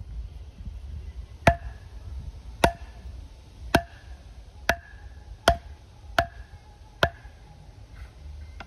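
A wooden baton striking the spine of a Terävä Skrama 240 large bush knife, driving the blade through a log across a knot (batoning). Seven sharp knocks about a second apart, coming a little faster towards the end, each with a brief ring from the steel blade.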